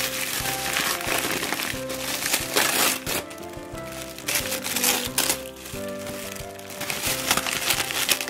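Wrapping paper and tissue paper crinkling and tearing in repeated bursts as a gift is unwrapped by hand, over steady background music.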